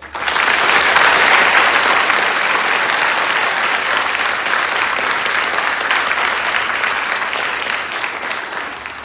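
A large audience applauding: many hands clapping together, starting suddenly and dying away near the end.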